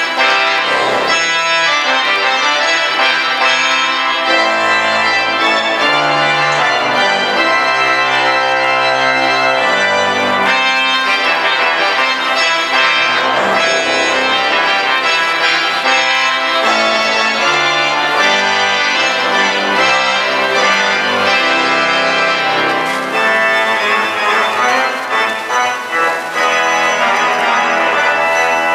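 Pipe organ playing loud, full chords over a moving low bass line. Between about 23 and 26 seconds in, the chords come in short, quick pulses before the sustained sound resumes.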